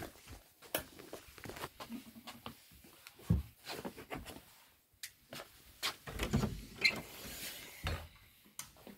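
Scattered faint clicks, knocks and rustling with a few dull thumps: handling noise of a phone being moved about while it films.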